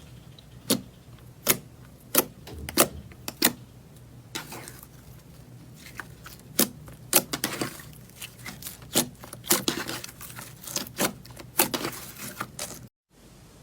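Slime being squeezed and poked by hand, making a run of sharp clicks and pops. The pops come about once every 0.7 s at first, then faster and more irregular. They stop abruptly near the end.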